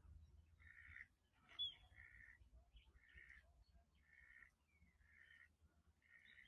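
Faint crow cawing over and over, about once a second, with every call short and on the same pitch. A brief, sharper chirp from another bird comes about a second and a half in.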